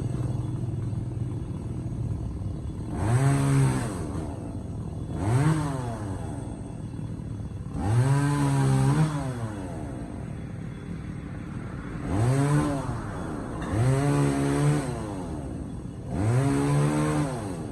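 Two-stroke chainsaw idling and being throttled up in six short bursts, each rising quickly, holding briefly and dropping back to idle.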